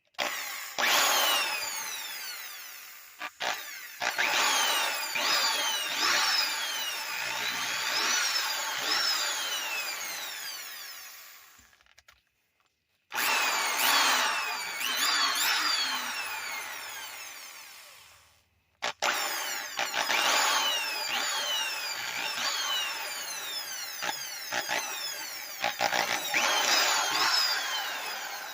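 Rockwell Model 82 variable-speed electric drill running free with no bit in the chuck. Its motor whine rises and falls as the trigger is squeezed and eased, and it spins down to a stop twice before starting up again.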